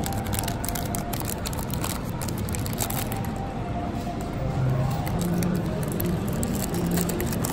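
Thin clear plastic bags crinkling as hands open and handle small squishy toys, a dense run of crackles. A low voice sounds in the background from about halfway through.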